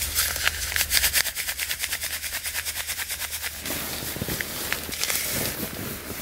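A disposable hand-warmer packet shaken rapidly in the hand, rattling in quick even strokes. About three and a half seconds in, this gives way to the crinkly rustle of a nylon down sleeping bag being pulled over.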